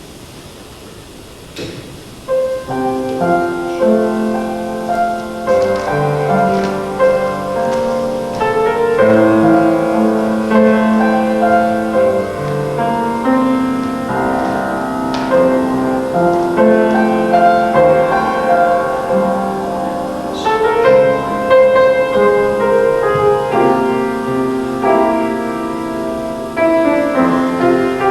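Solo piano playing slow, chordal instrumental music, starting about two seconds in.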